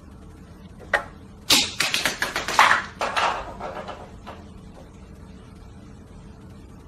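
Small plastic toy figurine knocked off a wooden shelf: one sharp knock about a second in, then a quick run of clattering bounces that die away over about two seconds.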